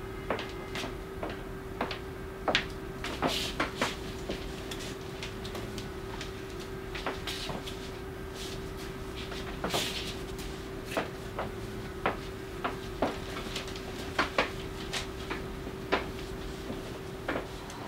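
Vintage railway carriage interior: a steady hum under irregular clicks, knocks and rattles scattered throughout.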